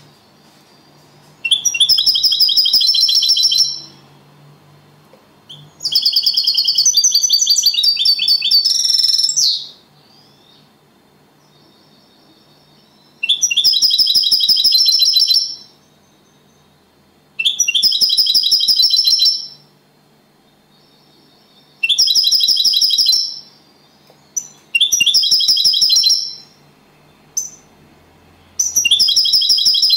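Caged European goldfinch singing the clean 'copia Málaga' song: about seven bursts of rapid, high, trilled phrases, each two to four seconds long, with pauses of a few seconds between.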